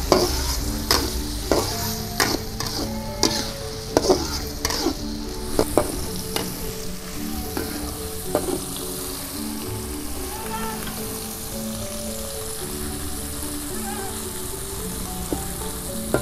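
Chopped tomatoes, shallots and chilies sizzling in oil in a metal wok, stirred with a metal spatula that scrapes and clicks against the pan. The clicks come thick and fast for the first six seconds or so, then only now and then, while the sizzle carries on steadily.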